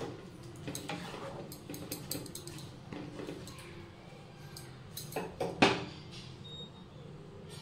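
Kitchen utensils clinking and knocking against cookware. The light clinks are scattered, with a louder cluster of knocks about five and a half seconds in.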